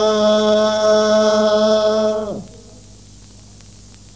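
Quran recitation in the Moroccan Filali style: a male voice holds a long, steady chanted note on the end of 'min 'indi-llah', then drops in pitch and stops about two seconds in, leaving a quiet pause before the next phrase.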